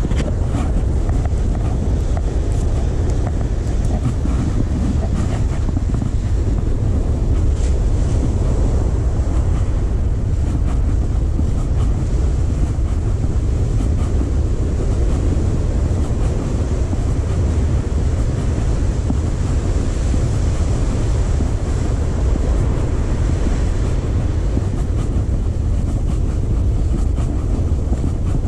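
Steady low rumble of surf breaking on the beach, mixed with air buffeting the microphone.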